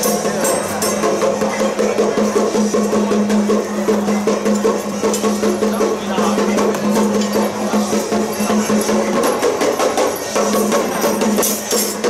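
Temple-procession music with percussion and a steady held tone that drops out about three-quarters of the way through, over many sharp wooden-sounding clacks.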